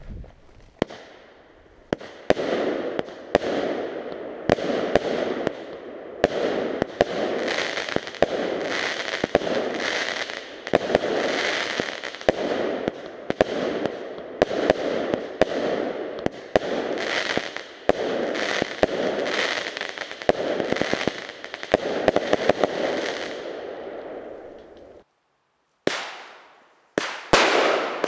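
Pyromax Alfa 25-shot, 20 mm fireworks cake firing: a run of sharp launch and burst bangs, about one to two a second, over a steady crackling hiss. The sound cuts out briefly about three seconds before the end, then more bangs follow.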